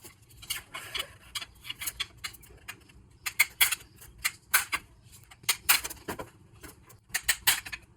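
Small metal parts of a CV axle joint clicking and clinking as they are handled and taken apart: irregular sharp clicks, a few a second.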